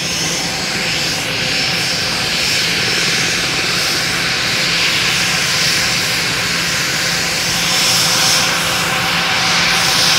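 Nearby business-jet engines running: a steady, loud rushing noise with a high whine held on one pitch.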